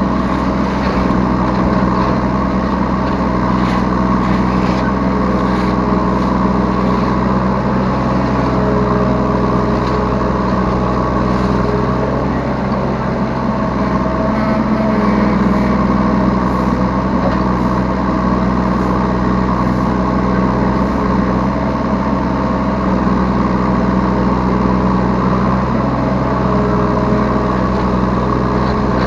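Diesel engine of a Yanmar B3 Sigma 3-ton mini excavator running steadily as it works, its note shifting slightly around the middle of the stretch.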